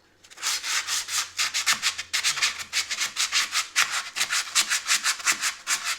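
Hand sanding with sandpaper on a car fender's body repair: quick, even back-and-forth strokes at about four a second, starting a moment in.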